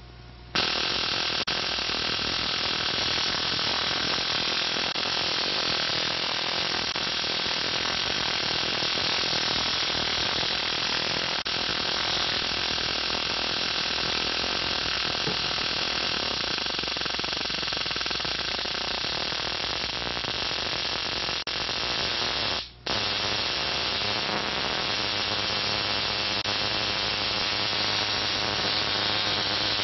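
Lakhovsky multiple wave oscillator's spark gap firing continuously, a loud steady hissing buzz with a low hum underneath. It starts about half a second in as the machine is switched on, drops out for a moment about 23 seconds in, and comes straight back.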